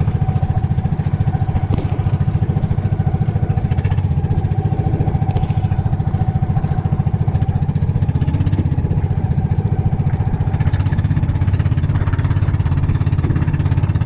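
Engine of a motorized outrigger boat running steadily at cruising speed, a fast even chugging with the boat under way.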